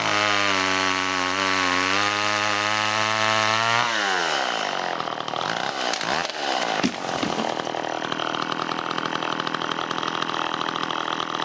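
John Deere 40V chainsaw running steadily in a cut, then winding down about four seconds in. A few sharp cracks follow over a rough, noisy background.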